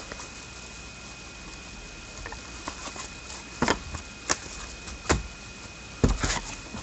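Trading cards and a card pack being handled at a table: a few short sharp taps and rustles over a quiet hiss, starting a little past halfway.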